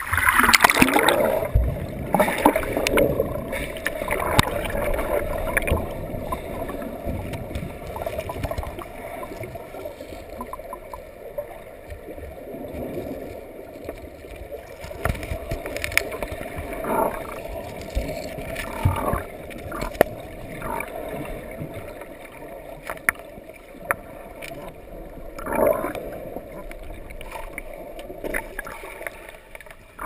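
River water splashing loudly in the first second, then the muffled underwater sound of a GoPro in its waterproof housing: a steady low rush of flowing river water, scattered clicks and knocks, and a few short gurgles.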